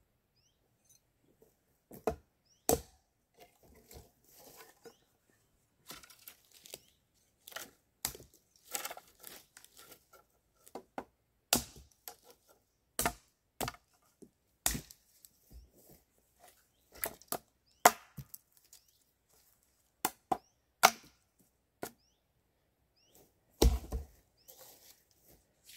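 Dead wood being chopped up with a hand tool: sharp, irregular chops about every second or two, with rustling and handling of branches between. A heavier thump comes near the end.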